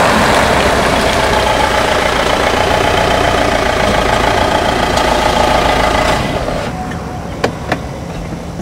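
Volkswagen Tiguan's 2.0-litre four-cylinder turbo-diesel running as the SUV drives on a wet road, with tyre hiss; the sound eases off about six seconds in as the car comes to a stop. Two sharp clicks follow near the end.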